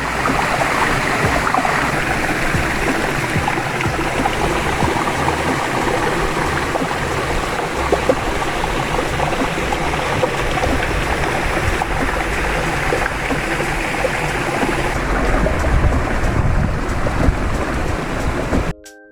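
Steady rushing outdoor noise with a rumbling low end, cutting off abruptly near the end.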